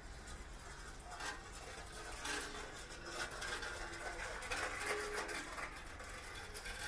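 City street ambience heard on foot: a steady low rumble with scattered clicks and knocks, busier in the middle.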